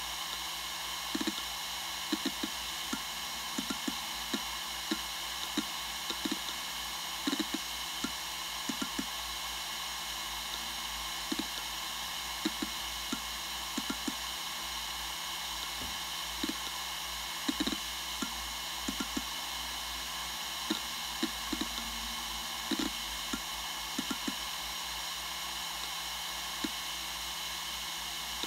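Western Digital Raptor WD1600ADFD 10,000 rpm hard drive spinning with a steady whine and hiss. Soft, irregular ticks from the read/write heads seeking come one or two a second, often in pairs.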